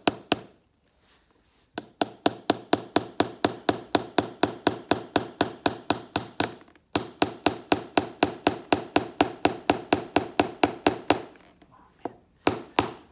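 A hammer tapping small nails through a leather boot sole into the insole, in quick runs of about five strokes a second. The runs break off in short pauses between nails.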